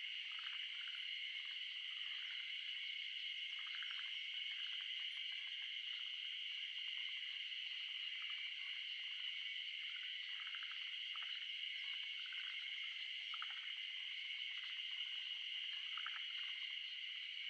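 A steady high-pitched chorus of calling animals, with many short soft ticks and patters scattered irregularly through it.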